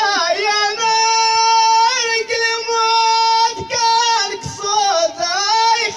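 A man singing solo into a microphone in a high voice, holding one long steady note for a few seconds, then breaking into shorter wavering, ornamented phrases, in the style of Amazigh ahwach singing.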